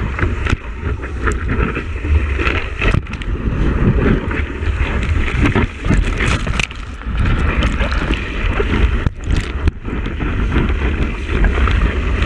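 Wind buffeting and water rushing past a surfboard-mounted action camera as the board rides a breaking wave, with whitewash splashing over the camera. The noise is steady but uneven, swelling and briefly dropping out now and then.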